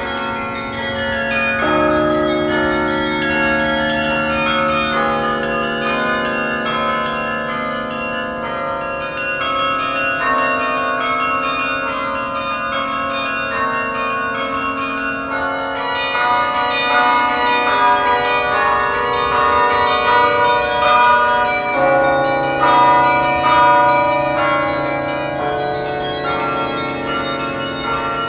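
Carillon bells playing a tune: struck bell notes that ring on and overlap into chords as the melody moves.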